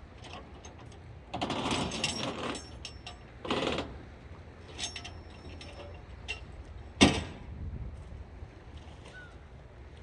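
Steady low wind rumble on the microphone at the seashore, with two short rough scraping, creaking noises in the first few seconds, scattered small clicks, and one sharp knock about seven seconds in.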